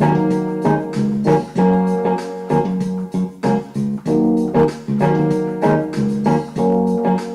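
Instrumental keyboard music: piano-like notes played in a steady rhythm, changing chords about every half second.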